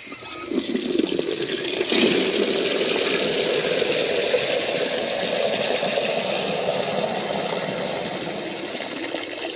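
Water poured from a bucket into the top reservoir of a plastic GreenStalk vertical planter, a steady rushing pour that starts about half a second in and grows fuller about two seconds in.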